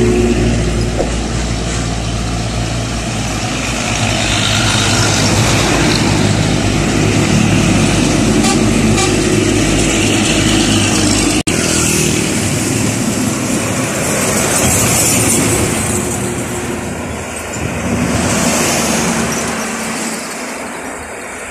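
Road traffic passing close by: heavy decorated diesel trucks and cars going past with engine drone and tyre noise. About halfway through the sound cuts abruptly to lighter traffic with less engine rumble.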